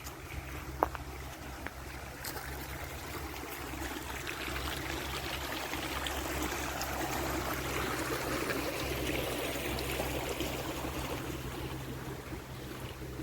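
A river or stream running and splashing over its bed, growing louder through the middle and easing a little near the end. A single sharp click about a second in.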